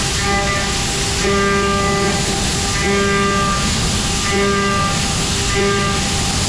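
Heller F6000 CNC machining center milling with a carbide cutter: a constant wash of cutting and coolant noise, with a pitched whine from the cutter that sets in and breaks off every second or so as the tool engages and leaves the cut.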